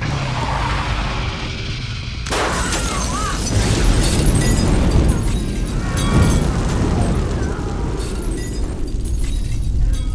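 A sudden explosion about two seconds in, followed by the dense rumbling noise of a fire burning, with music underneath.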